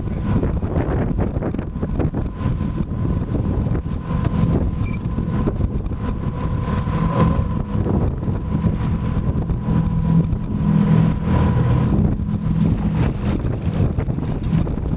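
Wind buffeting the microphone over a boat motor running steadily, with a faint steady high whine.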